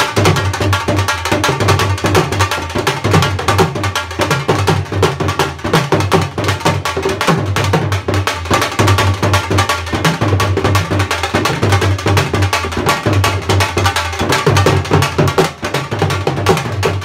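Dhol, the Punjabi double-headed barrel drum, played with sticks in a fast, unbroken rhythm. Deep bass strokes sit under rapid, crisp clicks from the thin stick on the treble head.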